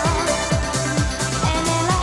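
Live band playing upbeat dance-pop: synths and electric guitar over a kick drum hitting about twice a second.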